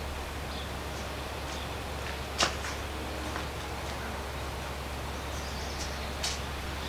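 Steady outdoor background noise with a low hum underneath, broken by one short sharp click about two and a half seconds in and a fainter click near the end.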